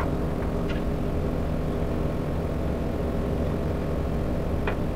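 Steady low rumble and hum of laboratory background noise, from a lit gas burner and room ventilation, with a couple of faint ticks about a second in and near the end.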